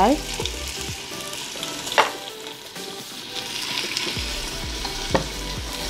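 Sliced onions and a split green chilli sizzling in ghee and oil in a steel pot, turned with a wooden spatula. Two short, sharp knocks stand out, about two seconds in and again near five seconds.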